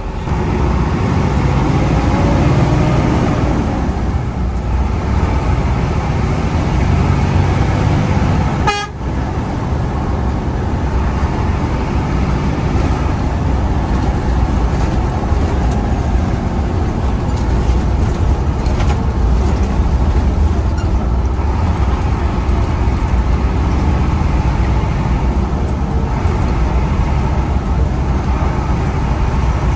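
Intercity bus engine running under way with road noise, heard from inside the cabin near the driver, with the horn tooted in traffic.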